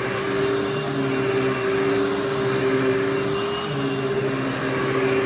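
Hoover WindTunnel bagless vacuum running on its high setting, a steady motor whine with a lower hum that comes and goes, as it sucks up shredded paper.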